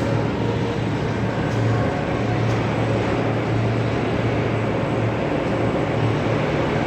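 A machine tool running steadily, with a strong low hum under an even mechanical noise.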